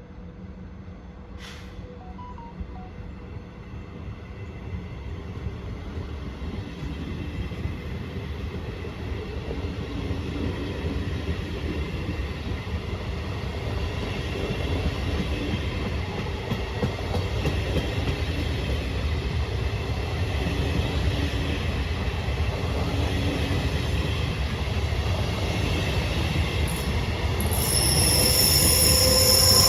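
A train approaching, its low rumble growing steadily louder, then near the end a high-pitched metallic squeal sets in as it comes close.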